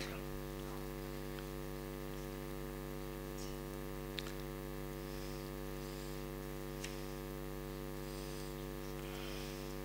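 Steady electrical mains hum, a low buzz with a stack of even overtones, with two faint ticks about four and seven seconds in.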